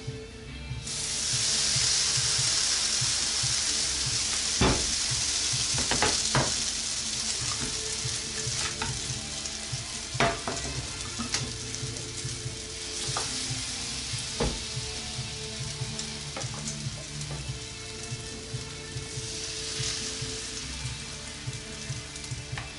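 Oatmeal pancake batter sizzling in hot frying pans. The hiss swells sharply about a second in as fresh batter goes into a pan, and again near the end. A few sharp knocks of the spatula against the pans.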